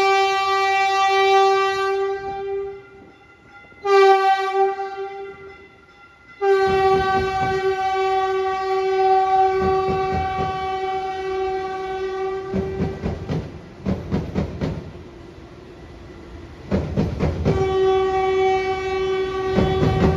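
Train's multi-chime air horn sounding at a grade crossing: a long blast, a short one, a long drawn-out blast, then after a pause another long blast. From about two-thirds of the way in, the train's rumble and wheel clatter come in under the horn.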